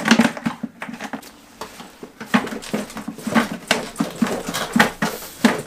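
A dog panting in quick, uneven breaths.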